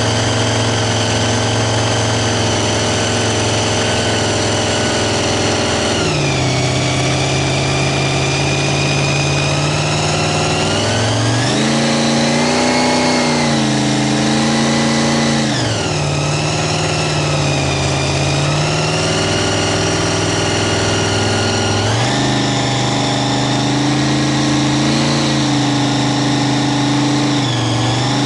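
Supercharged 496 big-block V8 with a 6-71 blower, running a jet boat at speed. Its pitch falls and climbs several times as the throttle is eased off and opened again.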